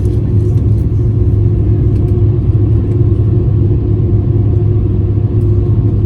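Steady, loud low rumble of jet engines and airflow heard inside a wide-body airliner's cabin in flight, with a constant hum above it.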